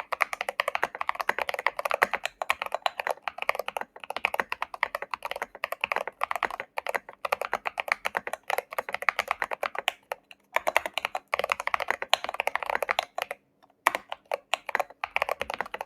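Fast, continuous typing on a Zoom75 mechanical keyboard with WS Morandi linear switches, recorded through a FIFINE A8 USB microphone as a keyboard sound test. There are brief pauses a little past two thirds of the way in and again near the end.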